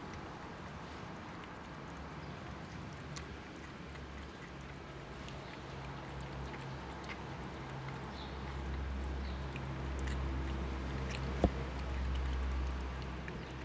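A cat eating chunks of wet food: faint wet chewing and small mouth clicks. A low rumble grows louder in the second half, and one sharp click stands out near the end.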